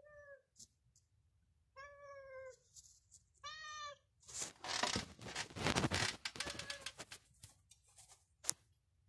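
A domestic cat meowing three times in short calls over the first four seconds. Then several seconds of rustling and clicking noise, louder than the meows, and a single sharp click near the end.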